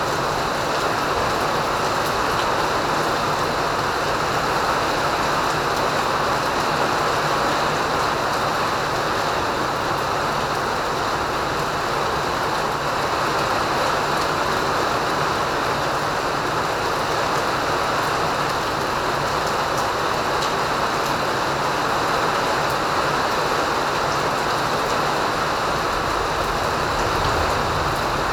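Rain falling steadily, an even, unbroken hiss with no let-up.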